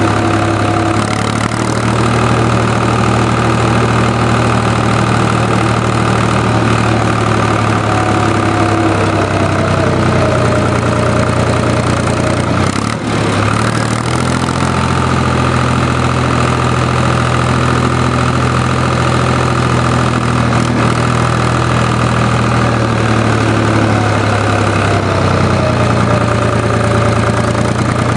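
IHC 383 tractor's three-cylinder diesel engine running steadily as the tractor drives along, with a brief dip in the engine note about halfway through.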